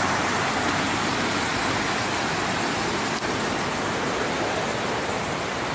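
Fast-flowing floodwater rushing and churning, a loud, steady wash of noise.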